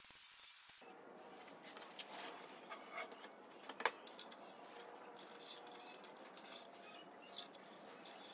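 Quiet clicks and scrapes of hand work on a wooden CNC frame: a screwdriver on a screw, tools set down and a plywood panel handled. One sharper click comes about four seconds in, over a low steady hiss.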